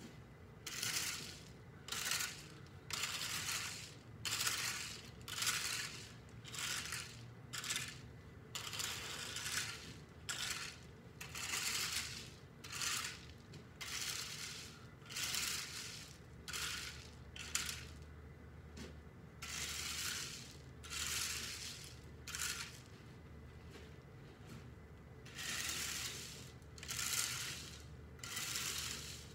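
Rake scraping and spreading loose gravel in repeated strokes, about one a second, with a couple of short pauses.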